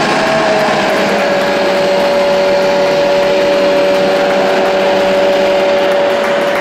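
Ice rink goal horn sounding one long steady tone over loud rushing noise, signalling a goal.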